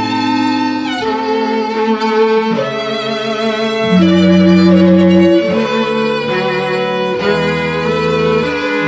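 A string trio, violin, cello and a second upper string, bowing sustained chords that change about once a second. It is loudest a little past the middle, over a held low note.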